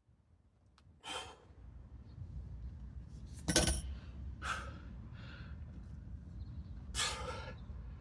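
A weightlifter taking sharp, forceful breaths, about five of them a second or so apart, the loudest about three and a half seconds in: bracing breaths before a heavy deadlift.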